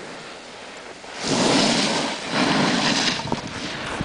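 Board or ski edges carving across groomed snow, a rushing scrape that swells twice, about a second in and again near the three-second mark, with wind on the microphone.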